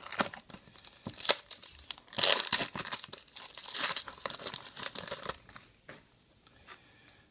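A trading-card pack's foil wrapper being torn open and crinkled: a few sharp crackles, then a few seconds of dense rustling that dies away about two-thirds of the way in.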